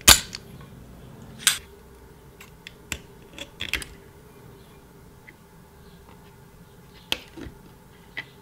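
Spring-loaded solder sucker (desoldering pump) firing with a sharp snap as it pulls molten solder off a tube-socket lug. A second sharp click follows about a second and a half later, then light clicks and taps of small tools on the socket's metal lugs.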